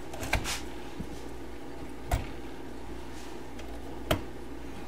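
Vacuum tubes being worked out of their sockets on a 1960 Zenith stereo's amplifier chassis: a few short clicks and knocks, a second or two apart.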